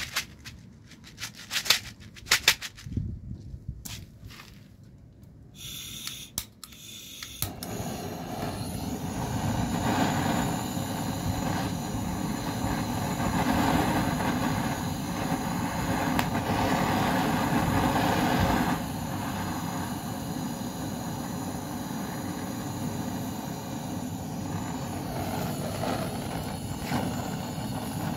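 A few sharp clicks and knocks, then from about seven seconds in a heating tool aimed at a glass light bulb starts up with a steady rushing hiss. The hiss drops a little in level about nineteen seconds in.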